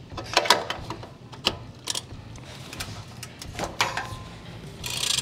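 Ratchet wrench working the exhaust downpipe flange hardware: scattered metal clicks and clinks, with a short buzzing run of ratchet mechanism noise near the end.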